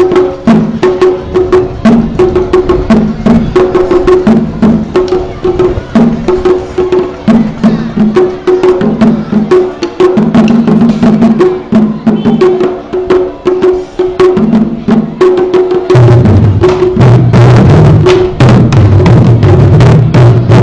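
Taiko-style drum troupe performing to backing music: sharp stick strikes over a repeating pitched tune. About three-quarters of the way through, the big barrel drums come in loud with deep, heavy strokes.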